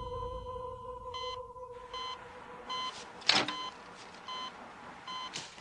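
Hospital heart monitor beeping at a steady pulse, about one beep every 0.8 seconds, each beep marking a heartbeat. A low droning tone fades out in the first second and a half. Two short rushing noises cut through, the louder one about three seconds in.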